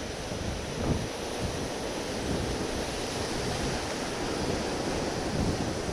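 Wind buffeting a small camera microphone, a gusty low rumble, over the wash of the sea against rocks.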